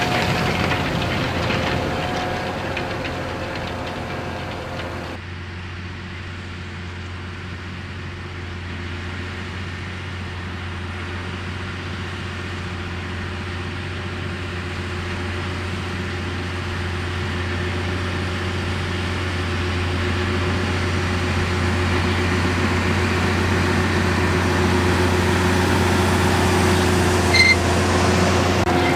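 Case IH Quadtrac 600 tractor's diesel engine running steadily under load as it pulls a nine-furrow mounted plough through stubble. The engine drone drops in level about five seconds in, then grows gradually louder as the tractor comes closer.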